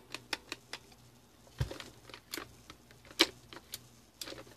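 Irregular sharp clicks and taps of hands handling and turning a plastic litter-box motor unit and fingering its plastic parts, about a dozen in all, with one duller knock about one and a half seconds in.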